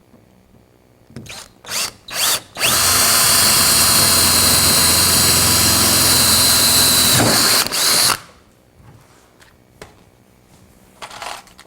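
Power drill with a 1/4-inch bit drilling a hole through the door panel into the car door for a panel clip: a few short trigger blips, then one steady run of about four and a half seconds that stops suddenly, followed by one more brief blip.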